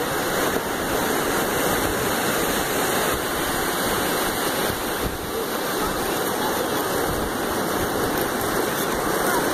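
Ocean surf breaking and washing up the shore, a steady rushing.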